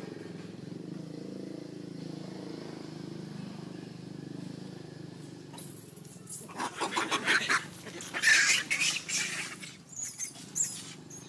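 Long-tailed macaques screaming in a series of loud, shrill bursts that break out about six seconds in, as one monkey charges and a fight starts. Before that there is only a steady low drone.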